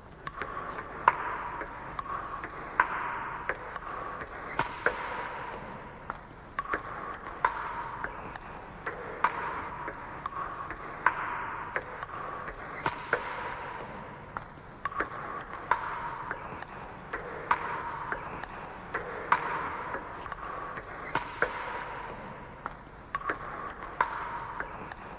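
Table tennis rally: the ball clicking off the bats and bouncing on the table, about two hits a second, in a chop-defence practice rally. A sharper, louder hit stands out about every eight seconds.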